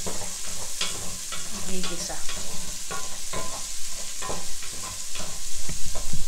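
Chopped onions and pork frying in a pot: a steady sizzling hiss, with a wooden spatula stirring and scraping against the pan bottom in irregular strokes.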